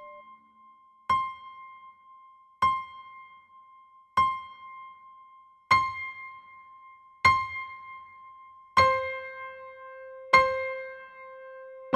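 Sparse piano music: a single high note struck slowly about every second and a half, each left to ring and fade. About nine seconds in, the note an octave below is added to it.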